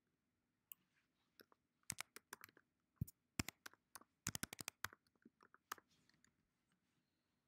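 Typing on a computer keyboard: scattered keystrokes, then short fast runs of key clicks, the quickest about four seconds in.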